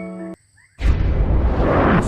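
Background music stops about a third of a second in; after a short silence a loud, steady noise with a deep rumble begins and carries on.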